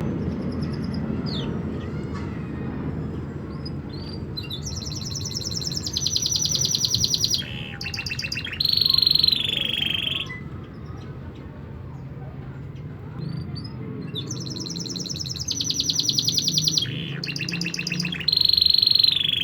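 Domestic canaries singing: two loud bouts of fast rolled trills, each ending in a held high whistled note, one in the middle and one near the end, over a steady low background hum.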